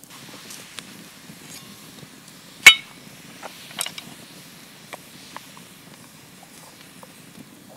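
One sharp, loud metallic clink about a third of the way in, ringing briefly. A few lighter clicks and taps follow, typical of camp cookware being handled.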